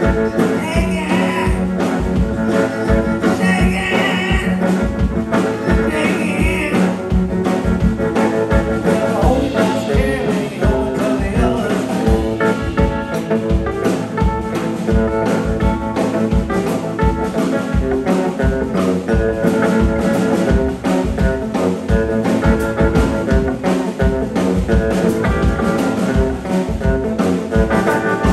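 A live band playing a blues song with a steady, even beat.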